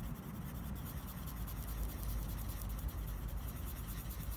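Winsor & Newton coloured pencil scratching on paper as a blue area is shaded in small repeated strokes, over a low steady rumble.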